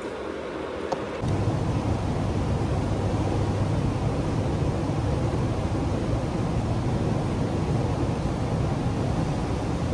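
Steady low rumbling noise of moving air, which starts abruptly about a second in.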